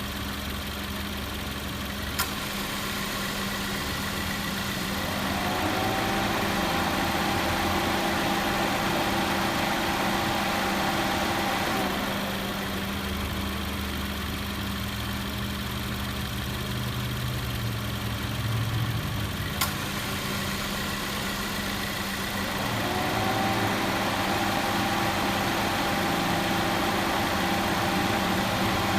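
A 2018 Subaru Forester's flat-four engine idling with the air conditioning on. The compressor clutch clicks in twice, and each time a steady whirring tone rises in and runs for several seconds. The compressor runs without abnormal noise after repair.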